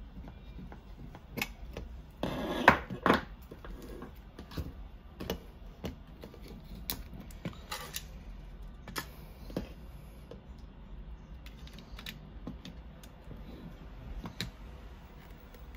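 Scattered clicks and taps of plastic handpiece parts and a hand tool being handled and set down on a wooden desk, with a louder burst of clattering about two to three seconds in.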